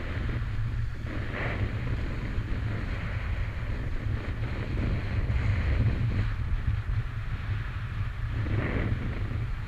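Wind buffeting an action camera's microphone while skis hiss and scrape over firm groomed snow, the scraping swelling louder about a second and a half in and again near the end.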